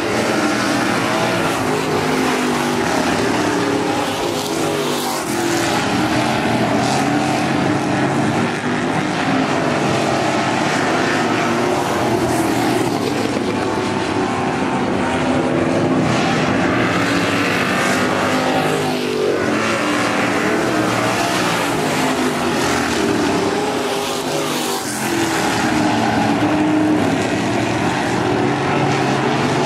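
A pack of eight-cylinder dirt-track stock cars racing, engines running hard and overlapping. Several times the engine note sweeps down as a car passes close by.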